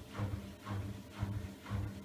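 Siemens iQ700 front-loading washing machine in its rinse phase, the drum turning with a low motor hum and a swish that pulse together about twice a second.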